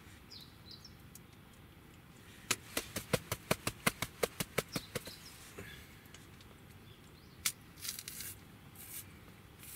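A quick run of about fifteen sharp hand taps, roughly six a second, lasting a couple of seconds. Later comes a single tap, then a few short tearing rustles of a banana being peeled near the end.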